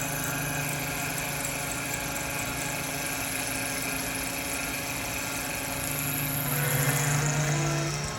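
Taig CNC mill running, its 1/4 HP motor turning the spindle at about 2900 rpm while a three-flute end mill cuts 6061 aluminum: a steady machine whine and hum. About seven seconds in the high whine fades and a lower hum grows louder.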